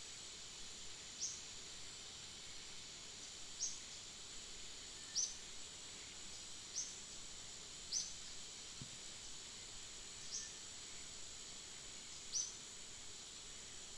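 Outdoor ambience: a steady high insect drone, with a short high chirp repeated seven times at uneven gaps of one to two seconds.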